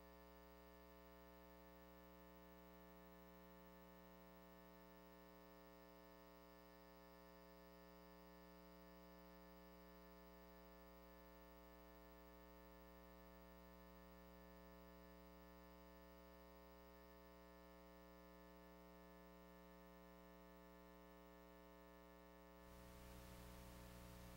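Near silence: a faint, steady electrical hum, with a little more hiss near the end.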